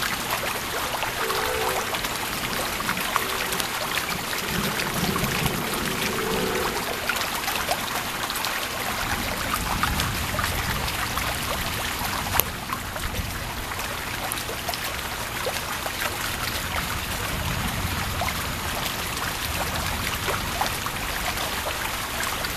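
Heavy thunderstorm rain falling steadily, with low rumbles of thunder swelling about five seconds in and again around ten seconds in. A single sharp click about twelve seconds in.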